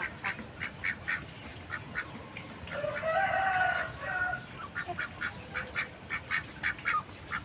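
Flock of domestic ducks quacking in quick short calls, several a second, with one longer drawn-out call about three seconds in.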